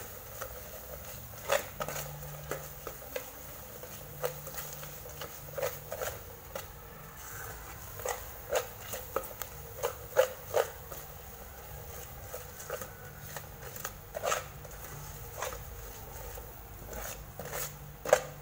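Metal spatula scraping and clinking against a metal pot while stirring a thick caramel and garlic sauce, in irregular strokes about once or twice a second.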